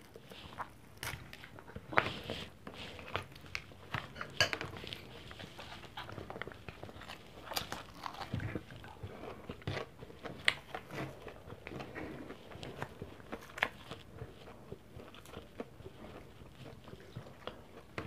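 Close-up mouth sounds of eating fried pork chop with rice: biting and chewing, with irregular sharp clicks and smacks throughout.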